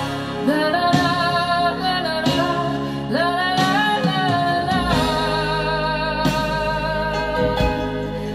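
A recorded song playing back over a hi-fi system's floor-standing speakers, driven by AGD Production Audion monoblock amplifiers. A singing voice holds long notes over guitar accompaniment.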